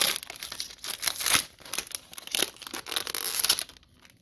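Plastic wrapper of a 2020 Donruss football card pack being torn open and crinkled in a series of rustling rips, stopping about three and a half seconds in.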